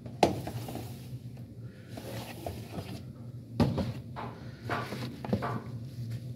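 Plastic mealworm crates being pulled out of a rack and handled: scraping plastic and a few sharp knocks, over a steady low hum.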